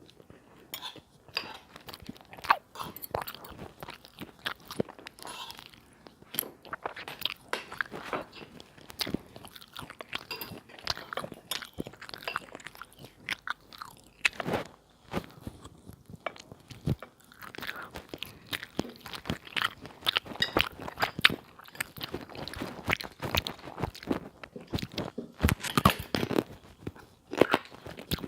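A person biting and chewing crunchy food close to the microphone: a dense, irregular run of sharp crunches.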